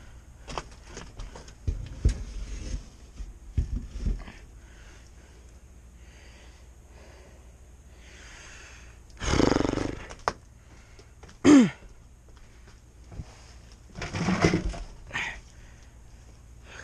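A man straining at physical work: heavy breathy exhales and a short groan falling in pitch. Before them come scattered light clicks and knocks of metal parts being handled.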